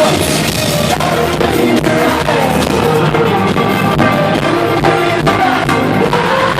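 Rock music with a drum kit keeping a steady beat, and singing.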